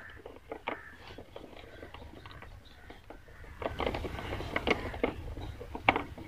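Kitchen knife cutting into a raw tinda (round gourd): a run of short crisp cuts and scrapes as the cap is cut from the top, sparse at first and coming thicker from about halfway through.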